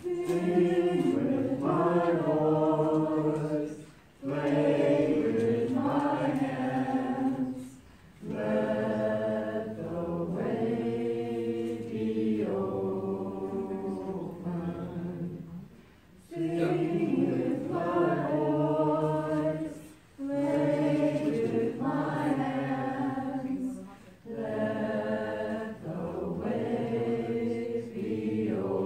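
A group of voices singing a repeated chant unaccompanied, in phrases of about four seconds with brief pauses for breath between them.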